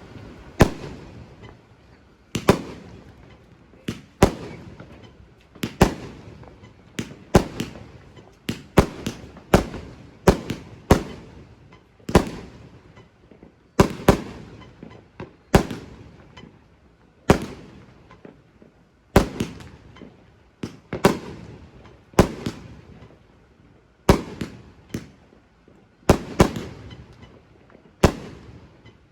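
Fireworks going off in a steady series of sharp bangs, roughly one every second or two and sometimes two in quick succession, each dying away with a short echoing tail.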